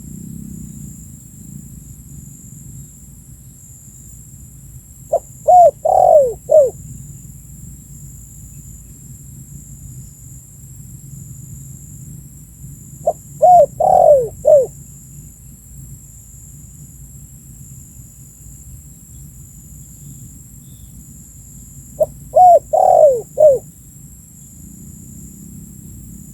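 Spotted dove (tekukur) calling: three cooing phrases about eight seconds apart, each a short run of notes falling in pitch, over a steady low background noise.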